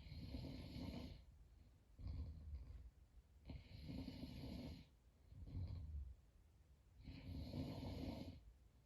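A sleeping person snoring badly: three long, hissing breaths, each followed by a short, low snore, in a steady rhythm of about one breath cycle every three and a half seconds.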